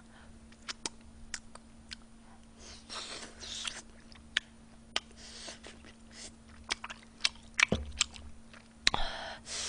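Close-miked chewing of tteokbokki (rice cakes in sauce and broth): soft wet chewing with scattered mouth clicks, over a faint steady hum.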